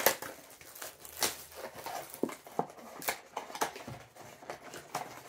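Small cardboard boxes and packaging being handled: scattered light taps and rustles, with a sharper click about the start.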